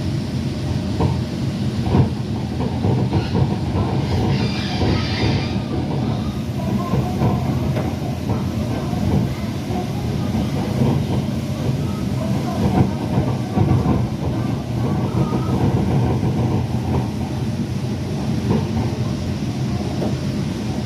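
Bangkok MRT Yellow Line monorail train running, a steady rumble with frequent light clacks and a brief hiss about four seconds in.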